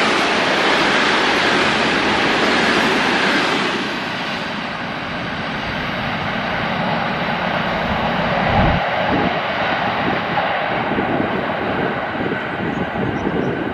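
Electric trains on a double-track line: the loud rushing rumble and wheel noise of a train passing close, which fades about four seconds in. Then an ED4M electric multiple unit approaches, its rumble building with a low thump and a run of wheel knocks over the last few seconds.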